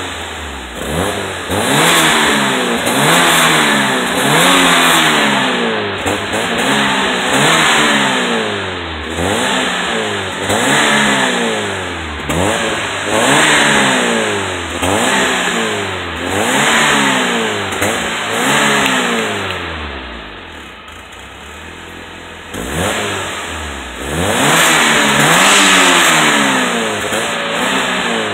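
Fiat Cinquecento Sporting's 1.1-litre four-cylinder engine on its stock exhaust, revved up and down over and over, about every two seconds. It drops back to idle for a couple of seconds about two-thirds of the way through, then is held at higher revs near the end.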